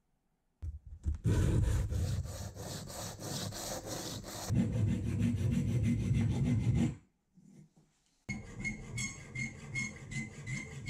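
Aluminium rudder blade being shaped by hand with quick back-and-forth abrasive strokes, filing or sanding, for several seconds. After a short pause, a round file scrapes the aluminium clamped in a vise in steady strokes, with a thin metallic ringing through them.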